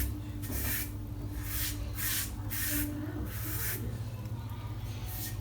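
Stainless-steel safety razor with a Gillette Nacet blade scraping through lather and stubble on a scalp in a series of short, rasping strokes, with a pause near the end.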